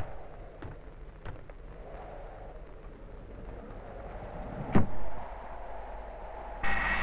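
Footsteps on a hard surface, about one every two-thirds of a second, then a loud thump about five seconds in. Near the end, the high steady whine of a twin-jet aircraft's engines starts suddenly.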